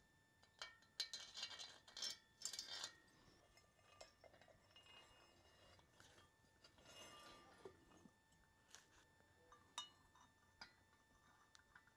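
Faint metallic clinks and taps as long head bolts, a finned cylinder barrel and a steel plate are fitted onto a Porsche 912 cylinder head. They come in a cluster over the first three seconds, then a soft scrape about seven seconds in and a few single ticks.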